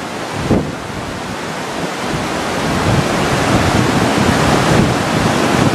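Fast-flowing floodwater rushing through a desert wadi: a dense, continuous rush of water that grows louder about three seconds in. There is a short bump about half a second in.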